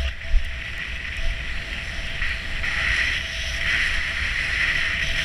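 Skis hissing over packed snow while gliding downhill, mixed with wind rushing over an action camera's microphone; the hiss grows louder about two and a half seconds in, with low thumps from the skis riding over bumps.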